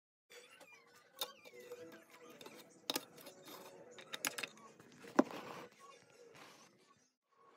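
Handling noise of plastic Lego pieces: several sharp clicks and knocks, the loudest about five seconds in, over a faint steady hum.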